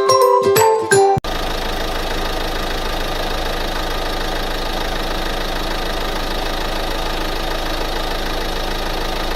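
Plucked ukulele music cuts off abruptly about a second in, replaced by a steady engine running at idle, as a cartoon sound effect, with no change in speed or level.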